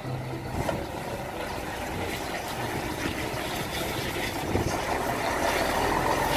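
Diesel engine of a concrete mixer truck with a pump boom, running steadily as the truck pulls out and drives off, growing slowly louder.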